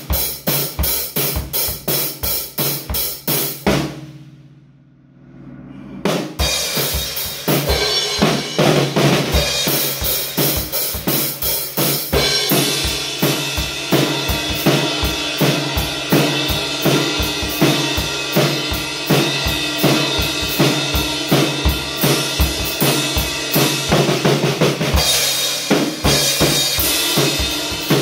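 Acoustic drum kit being played: a steady beat of bass drum and snare, a short pause about four seconds in, then busier playing with cymbals ringing over the drums.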